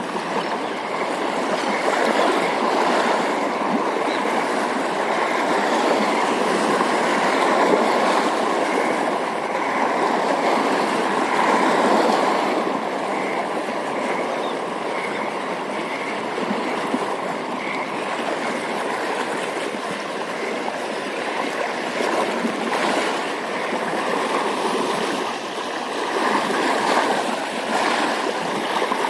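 Steady rush of flowing water, an even hiss that swells and eases a little.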